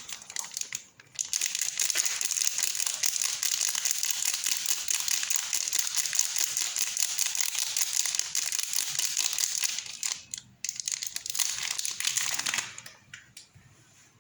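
Wrapper of a packed soap bar being crinkled and opened: continuous close crackling with a brief break about ten seconds in, trailing off near the end.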